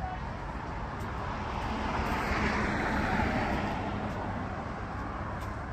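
A motor vehicle passing by: its noise swells to a peak about three seconds in and then fades, over a steady low traffic rumble.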